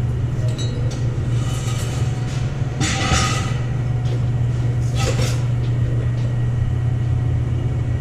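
A steady low mechanical hum, with a few short rushing noises about one and a half, three and five seconds in.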